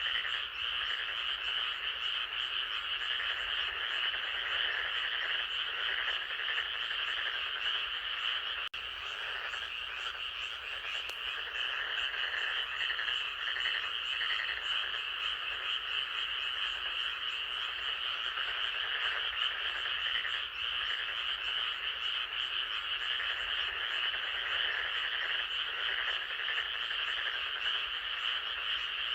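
A dense, continuous chorus of frogs calling, many overlapping trilling croaks that blend into a steady pulsing drone.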